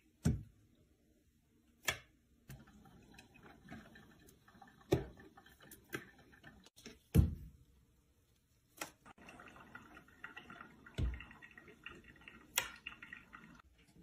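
Quiet room tone broken by about six short, soft knocks or taps, spaced a second or more apart, the loudest a little past the middle.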